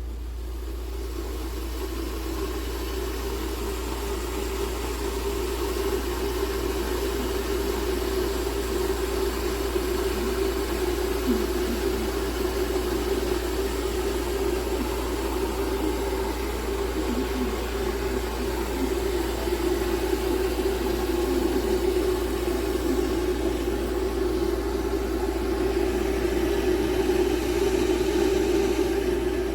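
COMFEE 1.7 L stainless-steel electric kettle heating water: a steady rumbling hiss that grows gradually louder as the water nears the boil.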